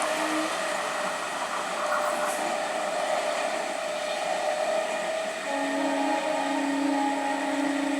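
Indian electric multiple unit (EMU) local train running with a steady rumbling hiss, and a train horn sounding as one held tone from about five and a half seconds in; a previous horn note ends just after the start.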